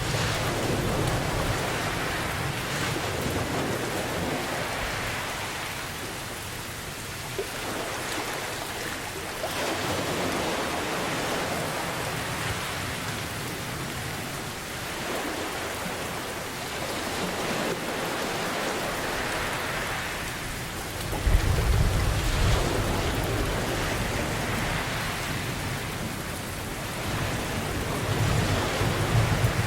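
Steady rain with ocean waves swelling and washing back every few seconds, and low thunder rumbling at the start and again from about two-thirds of the way through.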